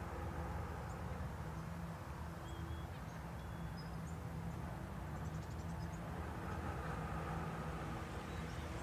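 A faint, steady low hum with a few brief, high bird chirps scattered through it.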